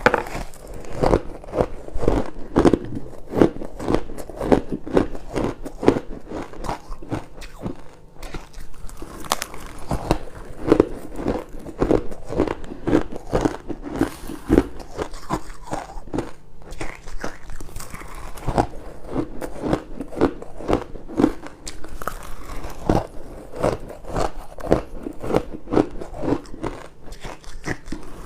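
Crushed and shaved ice being bitten close to the microphone: a dense, uneven run of crunches, with short pauses about eight seconds in and again past the middle.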